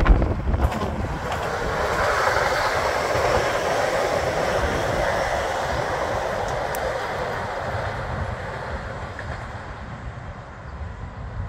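Koleje Dolnośląskie multiple-unit passenger train passing on the rails, its running noise swelling over the first couple of seconds and then fading slowly as it moves away. Wind buffets the microphone throughout.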